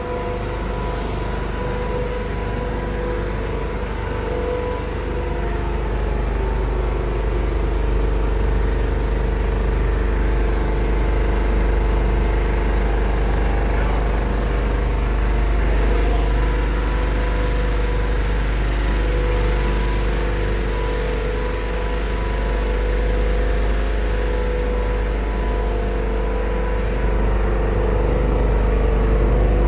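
Richpeace multi-needle high-speed quilting machine running in production, a steady mechanical din with a constant hum over an even low rumble.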